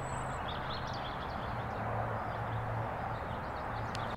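Outdoor ambience: a steady rushing background noise with faint bird chirps scattered through it.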